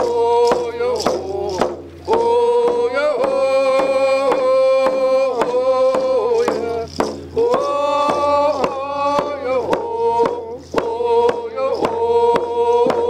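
A man singing a Native American prayer song in long held notes, accompanying himself on a hand drum struck with a steady beat.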